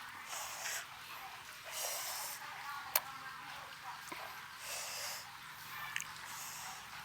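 Close-miked chewing and wet mouth noises of someone eating, coming in several bursts, with a sharp click about three seconds in.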